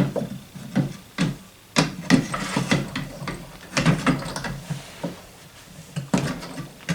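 Steel parts of a Barrett Model 95 .50 BMG rifle knocking, clicking and scraping as the heavy barrel assembly is worked back onto the receiver along its grooves. The knocks come irregularly, several of them sharp.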